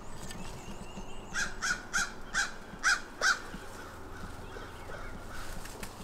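Crow cawing six times in a quick series of harsh calls, starting about a second and a half in.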